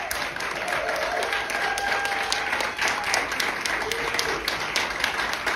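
A crowd applauding: many hands clapping steadily, with a few voices calling out over the clapping.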